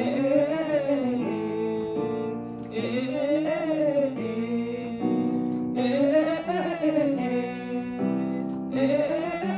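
A singer vocalising a vowel exercise on the A vowel over instrumental accompaniment. Each sung phrase rises and then falls in pitch, and they repeat about every three seconds, with held chords between them.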